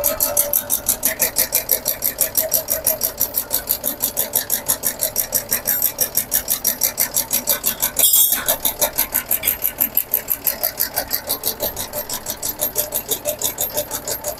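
6 DCM tobacco leaf cutting machine running, its blade chopping jarda tobacco leaf in a steady rhythm of about five strokes a second, with a brief louder rush about eight seconds in.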